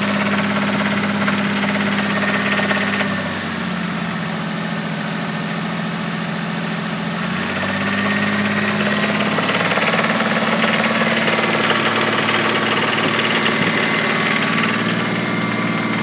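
Toyota Supra's 7M-GTE turbocharged inline-six idling with a steady rhythmic knock, which the owner takes for rod knock, seemingly in cylinders 1 and 5. The idle dips slightly about three seconds in and picks back up at about seven seconds.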